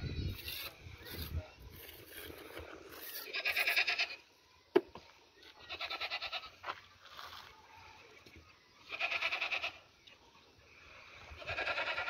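An animal bleating, four wavering calls about a second long each, spaced two to three seconds apart. There is a single sharp click just under five seconds in.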